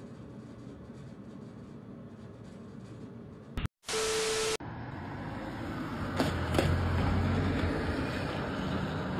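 A short burst of TV-static hiss with a steady beep, about four seconds in, after a brief dropout. Before it there is faint outdoor noise. After it a car moves slowly along a street, its low engine hum rising for a few seconds, with two sharp cracks.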